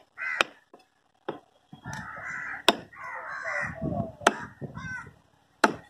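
A heavy cleaver chopping red snapper on a wooden log block: several sharp chops, roughly a second or more apart. Between the chops, crows cawing.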